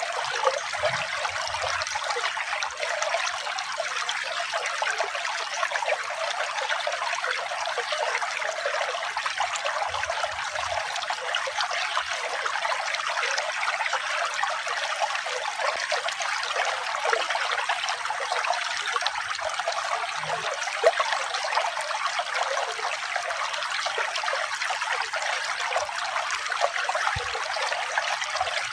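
Running water trickling and splashing steadily, an even, unbroken flow.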